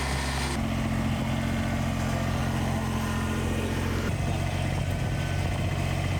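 Engine of heavy earthmoving equipment running steadily. Its sound changes abruptly about half a second in and again about four seconds in.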